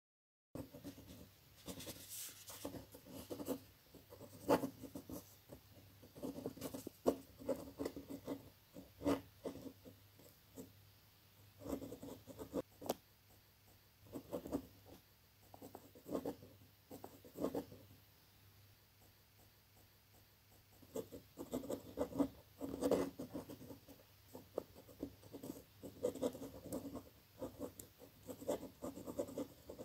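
Pen writing by hand on a sheet of paper: irregular scratching strokes with small taps, easing off for a few seconds about two-thirds of the way through before writing resumes.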